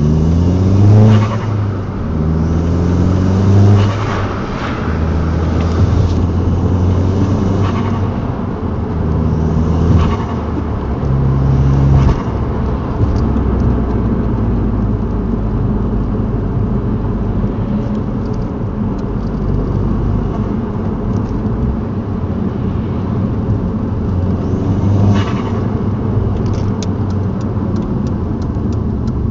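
2003 Volkswagen Golf GTI's 1.8-litre turbocharged four-cylinder engine revving up repeatedly in the first twelve seconds, each lift-off followed by a brief whooshing turbo flutter, then running more steadily, with one more flutter about twenty-five seconds in.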